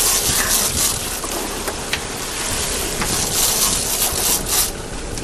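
Wind buffeting the microphone over the rush of sea water against a boat, swelling and easing, with a couple of faint clicks.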